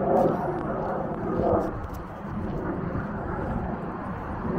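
Steady rumble of an F-16 fighter jet's engine in the distance, with crowd voices over it near the start and about a second and a half in.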